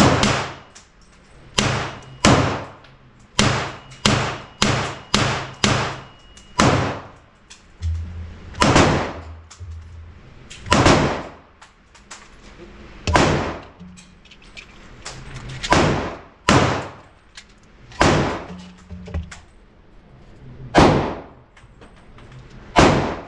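Gunshots on an indoor shooting range, about twenty in all, each with a short echo from the room. The shots come in a quick string a few seconds in, then one every second or two.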